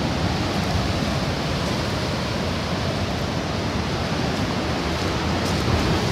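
Rough storm surf breaking and washing over a rocky volcanic shore: a steady rushing of churning, foaming water.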